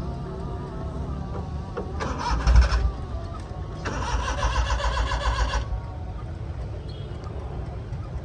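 Car engine cranking on the starter without catching: a short crank about two seconds in, then a longer one of nearly two seconds. The car won't start.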